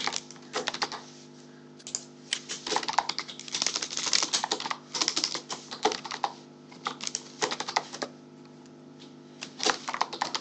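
Computer keyboard being typed on in quick bursts of key clicks, with a couple of short pauses between words.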